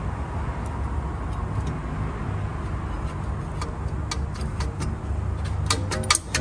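Light metallic clicks and clinks as a steel brake caliper bracket is slid over the rotor and seated. They are sparse at first, then come as a quick cluster of louder clinks near the end, over a steady low rumble.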